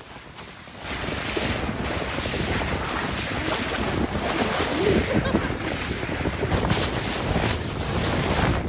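Water rushing and splashing along the hull of a moving boat, with heavy wind buffeting the microphone. It gets louder about a second in and stays steady.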